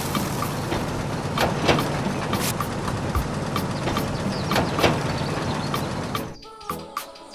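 Small geared electric motor of a toy crawler excavator running, with a steady whir and scattered rattling clicks as it drives on its tracks. It stops about six seconds in and music takes over.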